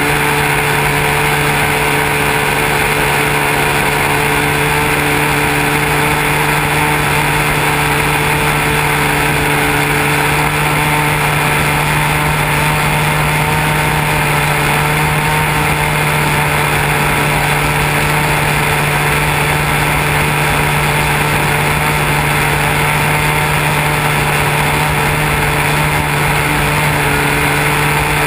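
Model airplane's motor and propeller running steadily in flight, a constant drone with a rush of air, heard from a camera mounted on the airframe.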